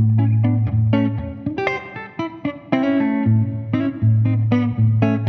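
Instrumental guitar music: quick picked guitar notes over long held bass notes.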